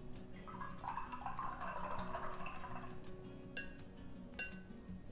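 A paintbrush swished in a glass jar of water for about three seconds, then tapped twice against the glass rim with short ringing clinks. Soft background music plays underneath.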